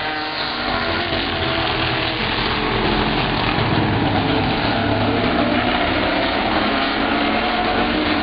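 A pack of street stock race cars' engines running together, a steady, loud mix of engines without a break.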